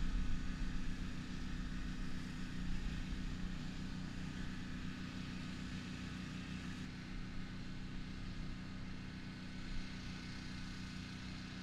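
An engine running steadily, a low even drone with no change in pitch, a little louder at the start.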